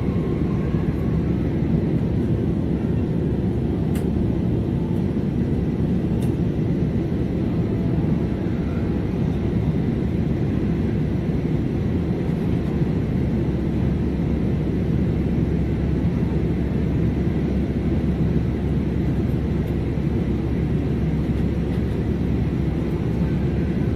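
Steady cabin noise inside a passenger jet in flight: the even, low rumble of the engines and airflow past the fuselage, with a couple of faint clicks in the cabin about four and six seconds in.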